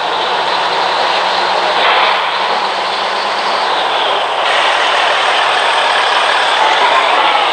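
Motor vehicle engine running through an aftermarket 'ngorok' (snoring-tone) exhaust, a loud steady drone.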